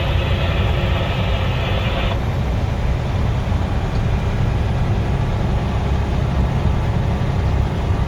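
Diesel engine of a heavy haul truck running steadily under way, a deep rumble heard from inside the cab. A higher-pitched layer of sound over it stops suddenly about two seconds in.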